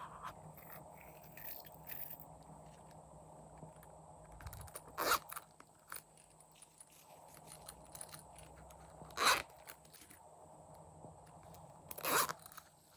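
Slime being squished and stretched by hand, with soft crackling and sticky scraping and three louder pops spread through.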